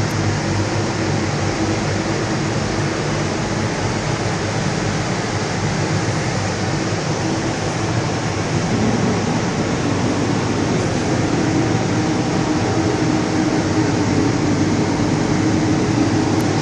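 A steady machine hum with hiss, rising slightly in level about halfway through.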